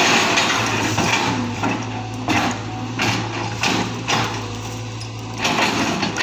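Cat 320GC excavator's diesel engine running steadily, with repeated bursts of rough, noisy clatter and scraping over it.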